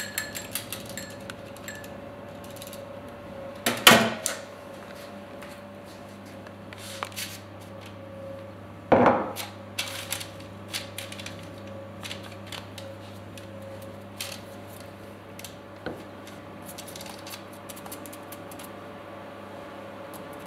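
Metal fork clinking against a small ceramic bowl while beating an egg yolk, with two louder knocks about four and nine seconds in. Light scattered taps and handling sounds follow as a pastry brush dabs the yolk onto the dough, over a faint steady hum.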